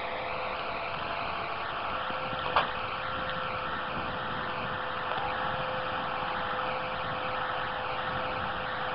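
Tractor engine running steadily as it powers a boom-mounted hydraulic guillotine cutting head, with a constant steady hum. A single sharp snap comes about two and a half seconds in.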